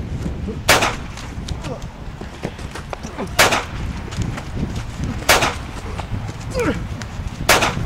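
Four loud, sharp hits spaced about two seconds apart: dubbed punch sound effects in a staged fistfight, with short vocal grunts between them.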